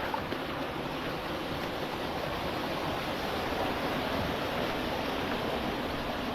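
Creek water flowing over rock: a steady, even rush with no break.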